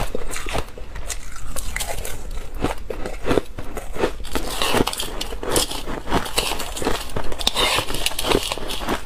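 Crushed ice being chewed close to the microphone: a fast, irregular run of crisp crunches and crackles as the grains are bitten and ground between the teeth.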